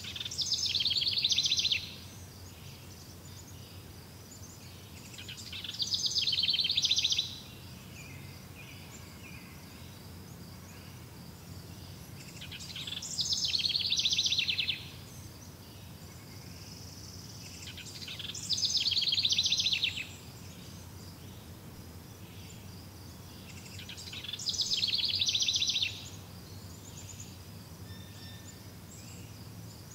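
Nature ambience: a high, rapid trilling call repeating about every six seconds, each call lasting about two seconds, building up and then cutting off suddenly, over a faint low steady hum.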